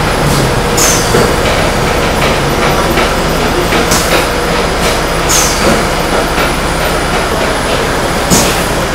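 Food-production machinery running with a loud, steady drone. Short, sharp hisses cut through it in pairs about a second and a half apart, and the pairs repeat every three to four seconds.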